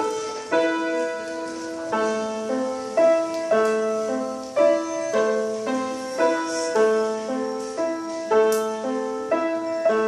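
Acoustic piano played solo by a young child: a simple, slow melody over held lower notes, with a new note or chord about every half second.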